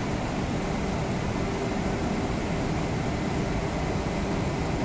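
Steady mechanical rumble with a low hum from a rail wagon traverser carrying a loaded open wagon sideways across its pit.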